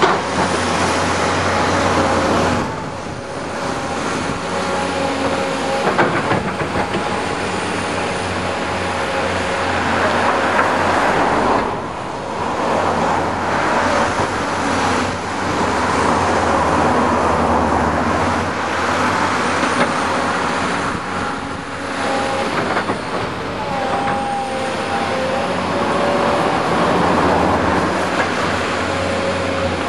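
Tracked excavators' diesel engines running and working: a steady drone with a few held engine tones that shift in pitch now and then, dipping briefly a few times.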